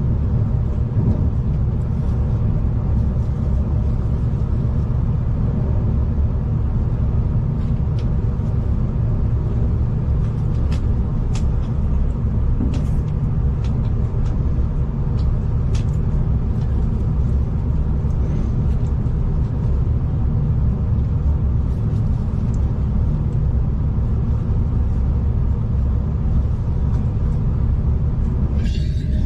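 Passenger train running, heard from inside: a steady low rumble with a few steady tones. Faint clicks are scattered through the middle, and a short burst of noise comes near the end.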